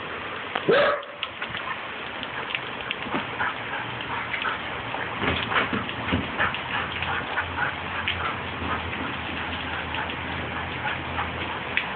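Steady rain falling on a wet wooden deck and patio, with one short, loud bark from a Siberian husky puppy about a second in. Scattered light taps and clicks run through the rain.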